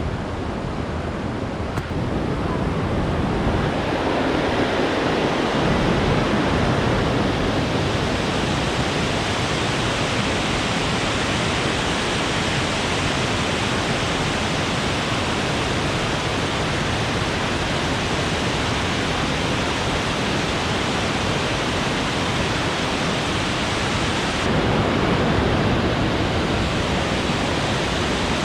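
Steady rushing noise of the Willow River waterfall, swelling a few seconds in and getting louder again near the end.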